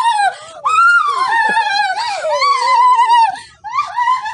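A high-pitched wailing cry, long drawn-out wails sliding up and down in pitch, broken by short pauses about half a second in and again near the end.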